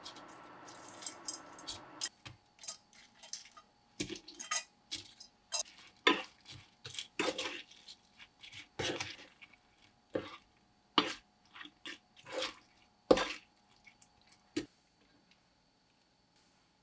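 Wooden spatula stirring and knocking in a nonstick frying pan while fried shrimp are tossed in a thick cream sauce: an irregular string of clacks and short scrapes. A steady hiss under it stops about two seconds in.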